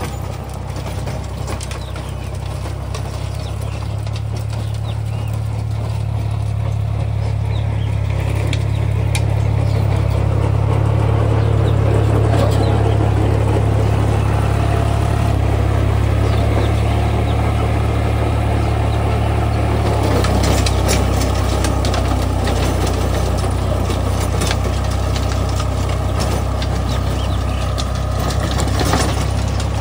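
Deutz-Fahr 55 hp tractor's diesel engine running under load as it drives a rotary tiller through soil, with scattered clatter from the tiller. The engine grows louder over the first ten seconds as the tractor comes closer, then holds steady.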